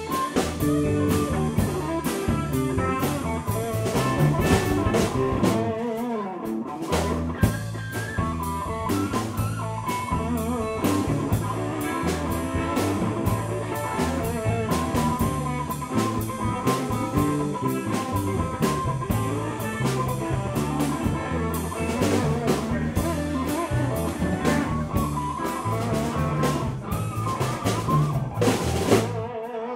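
Live blues band playing: two electric guitars over a drum kit, with a steady beat.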